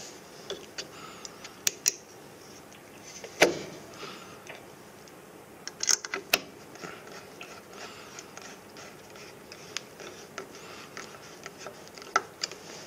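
Scattered clicks and knocks of hands and a screwdriver working on the sheet-metal casing and fasteners of an air conditioner's outdoor unit, with one louder knock about three and a half seconds in and a few sharp taps around six seconds.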